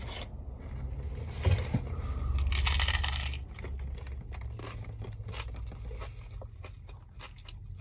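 Bites into a crunchy hard-shell taco and chewing: a run of crisp, cracking crunches, densest and loudest about one and a half to three and a half seconds in, then sparser.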